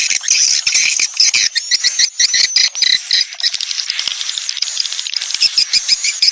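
Swiftlet lure call of swiftlet chicks: a dense, continuous twittering of rapid high-pitched chirps, many a second, the kind played in swiftlet houses to draw birds in.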